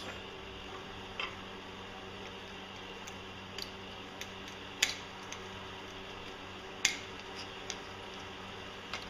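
Light metal clicks and ticks, about seven spread unevenly, as steel spacers and shims are worked out from around the driveshaft in a Mercruiser Bravo 3 sterndrive lower-unit gear case. A steady low hum runs underneath.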